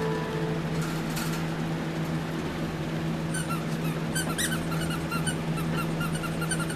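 Squeaking toy rat (a Halloween decoration): a regular run of short, rising squeaks, about four a second, starting about three seconds in, over a steady low hum.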